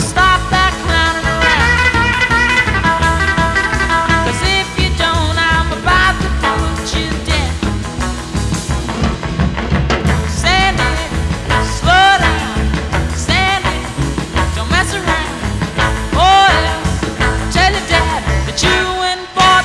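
A song with singing, guitar and a steady rock beat.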